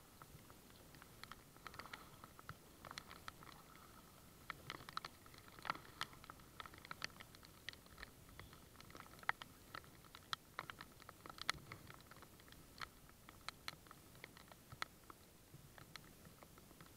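Light rain: scattered raindrops tapping close to the microphone, heard as faint, irregular ticks a few times a second.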